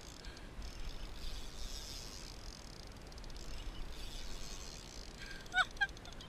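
Steady low rumble of wind and water on the camera's microphone, with two short high calls near the end, the first falling in pitch.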